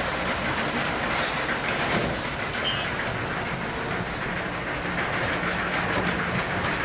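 Steady rumble and clatter of running machinery.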